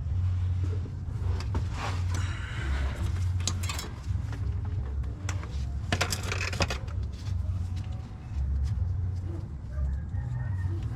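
Metal tools and engine parts clinking and tapping as they are handled, in scattered clicks with a dense burst of clinks about six seconds in, over a steady low rumble.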